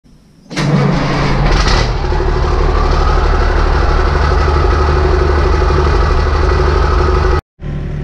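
A large engine starts about half a second in with a couple of quick flares, then runs loud and steady. The sound cuts out abruptly for a moment shortly before the end, and engine running comes back right after.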